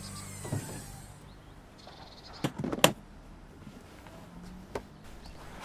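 Sound effects of an equipment case being opened: two sharp clicks about half a second apart near the middle as its latches snap open, with a few fainter clicks and taps around them.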